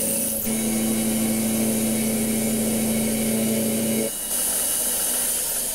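Small hobby lathe running while milling, with a steady motor hum and a high whine; the hum cuts off about four seconds in, leaving the high whine and hiss.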